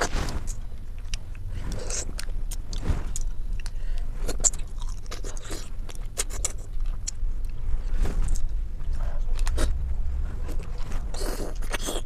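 Close-miked eating: chewing and sucking, with frequent small clicks and scrapes, over a steady low hum.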